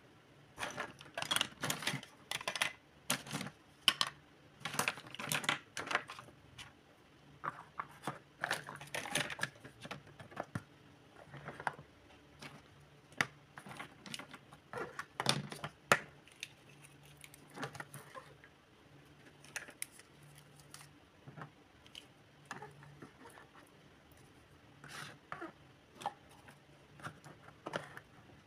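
Small hard plastic toy kitchen pieces clicking and clattering as they are picked up and set down on a table, many in quick succession at first and fewer after about ten seconds.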